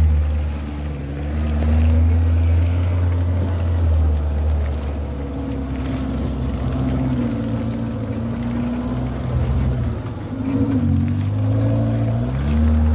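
Off-road 4x4's engine running in low gear over a rutted mud track, heard from inside the cabin; the engine note rises and falls with the throttle and climbs again near the end.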